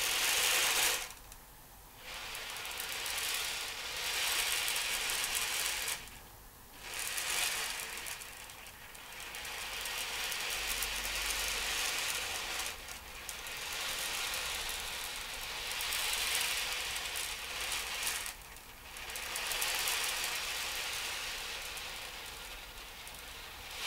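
Beads rolling across the inside of an ocean drum as it is tilted back and forth, a rushing wash that swells and fades every few seconds, like the sound of the ocean.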